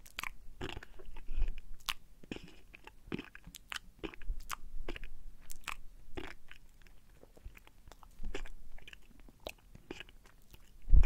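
Crunching, chewing sound effect: a long run of irregular, crisp crunches, with a louder thump at the very end.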